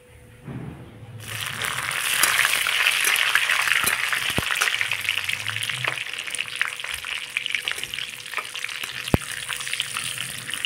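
Whole green chillies hitting hot oil in a kadai for a tadka of cumin, bay leaves and asafoetida: a sudden loud sizzle and crackle about a second in, strongest over the next few seconds, then settling to a steady sizzle. Two sharp knocks of the steel spatula against the pan come partway through as it is stirred.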